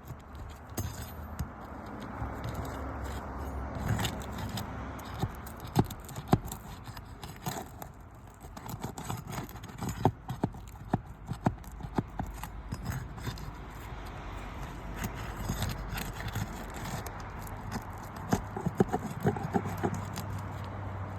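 A roof snake, a steel shingle-removal tool, worked under asphalt shingles: irregular metallic clicks, taps and scraping as it loosens the shingles and their nails.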